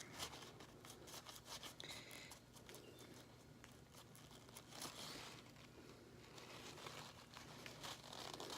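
Faint crinkling rustle of a paper towel rubbed over an Apple Watch to dry it, in many small irregular scratches.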